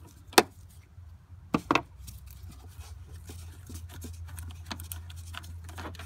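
Sharp metal clicks and small handling knocks as the negative battery terminal is worked loose and lifted off the battery post, with a low steady hum underneath.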